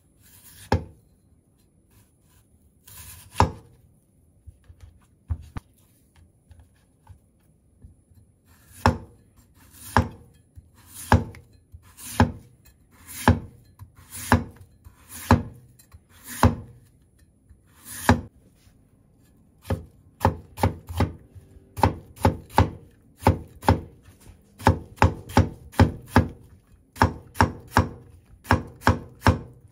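Chinese cleaver cutting daikon radish on a wooden cutting board. A few separate cuts come first, then strokes about once a second as thin slices are shaved off, then quicker chopping, two to three strokes a second, in the last third as the stacked slices are cut into matchsticks.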